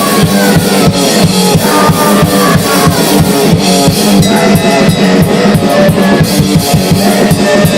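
Grindcore band playing: very fast, dense drumming with bass drum and snare under distorted guitar.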